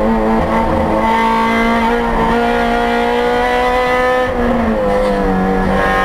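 In-cabin sound of a 2008 Honda Civic Si's 2.0-litre four-cylinder race engine running hard, its pitch climbing slowly under full throttle. About four seconds in the pitch drops and levels off lower as the car slows for a corner.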